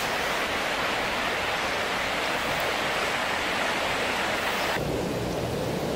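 Steady rushing, water-like noise with no distinct events. About five seconds in it changes abruptly to a duller, lower rush.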